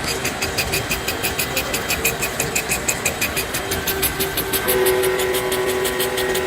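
Industrial machine tool running with a fast, even ticking of about six strikes a second over a steady mechanical hum. A higher steady tone joins about three quarters of the way through.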